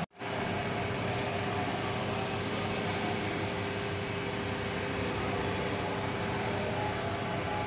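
Steady hum and hiss of workshop background noise, even throughout, with a couple of faint steady tones in it.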